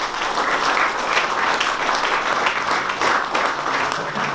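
Audience applauding steadily in a small room.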